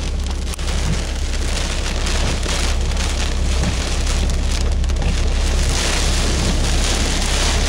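Heavy wind-driven rain pelting a Jeep, heard from inside the cabin. Under it is a steady low rumble from storm winds gusting around 60 mph.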